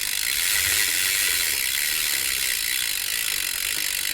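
A BMX bike's sealed 9-tooth rear cassette hub freewheeling, its pawls clicking so fast that they run together into a steady, high-pitched ratcheting buzz.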